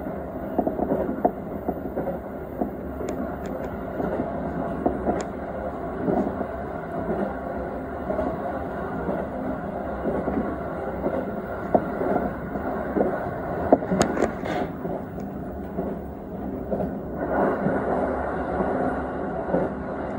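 Electric commuter train running at speed, heard from inside the front car: a steady rumble of wheels on rails with scattered clicks and knocks. There is a sharper clatter about fourteen seconds in, and the rumble grows a little louder near the end.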